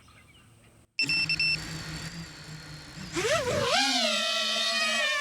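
Brushless motors of a 5-inch FPV quadcopter, picked up by a microphone on the drone: a steady hum starts abruptly about a second in, then about three seconds in the motor whine rises and wavers as the throttle comes up and settles into a steady high whine.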